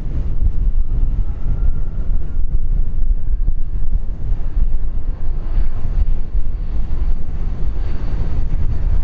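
Wind buffeting the microphone over the low rumble of a BAe 146-200's four turbofan engines as the jet rolls out on the runway after landing. A faint high whine joins about halfway through.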